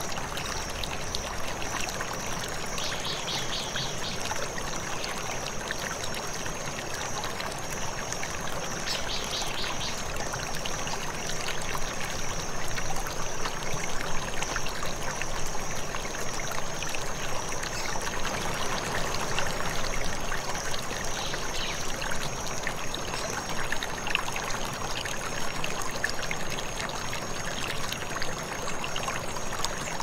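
Steady rush of flowing water, splashing and trickling, with a thin high steady tone above it. Two short rapid chirping trills come about three and about nine seconds in.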